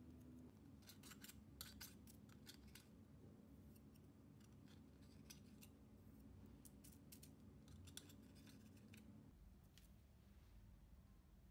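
Faint, quick clicks and scrapes of a knife trimming tart dough around the rim of a fluted metal mini tart tin, with fingers pressing the dough into the tin. The clicks come in clusters and stop about nine seconds in.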